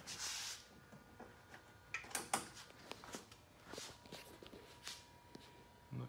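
Faint handling noise: a short hiss at the start, then irregular light clicks and knocks. A faint steady tone comes in about four seconds in.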